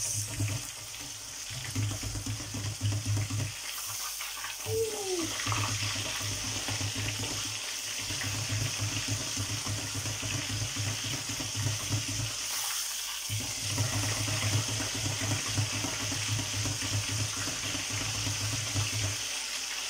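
Flour-coated pork strips deep-frying in hot oil in a pot with a wire basket: a steady sizzling, bubbling hiss, with a low hum underneath.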